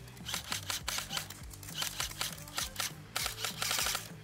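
Background music with a steady beat, over the clicking shots of an airsoft rifle; about three seconds in, a rapid burst of airsoft fire lasting close to a second is the loudest sound.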